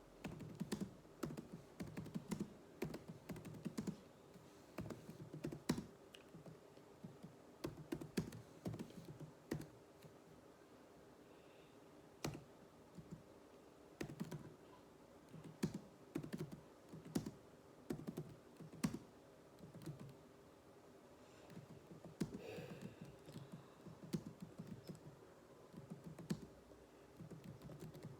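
Computer keyboard keys being typed in uneven runs of quick keystrokes, with short pauses between runs, as in typing practice.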